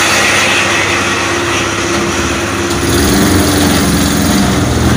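Homemade mini truck's motorcycle engine idling steadily, its tone shifting slightly about three seconds in.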